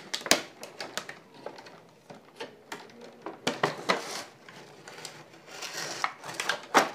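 Hands handling the plastic packaging of a toy drone's box, the moulded plastic tray and a zip-lock bag of parts: irregular taps, clicks and crinkling rustles, with a few louder knocks.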